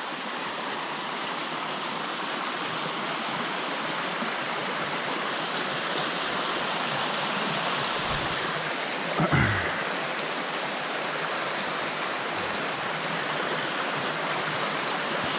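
Creek water running steadily, an even rushing. About nine seconds in, a brief louder sound falls quickly in pitch.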